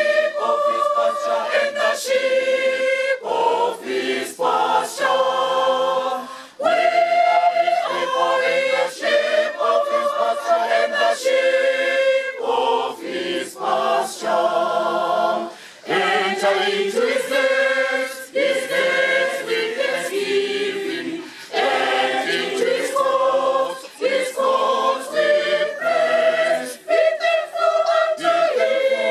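A mixed choir of men's and women's voices singing a hymn unaccompanied, in phrases with short breaks between them.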